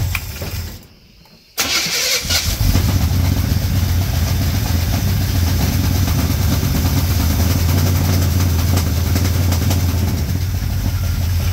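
Carbureted Chevrolet engine of a 1987 Chevrolet K10 running just after its first start following a head gasket replacement. The sound falls away briefly about a second in, comes back suddenly, then the engine runs steadily.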